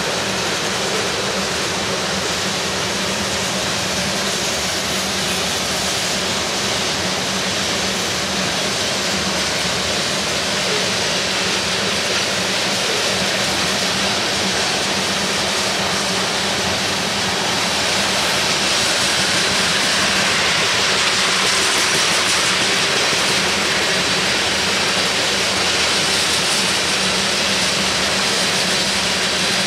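Freight train tank cars rolling past: a steady rumble and hiss of steel wheels on the rails. It grows a little louder about two-thirds of the way in.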